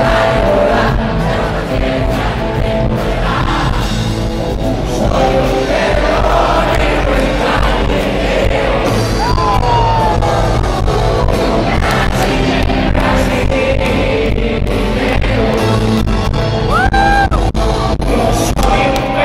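Live rock band playing loudly, with singing and scattered yells from the crowd, heard in a large arena.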